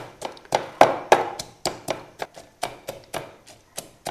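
A metal pestle pounding peanuts, chillies and garlic in a tall wooden mortar, with dull knocks at about four a second.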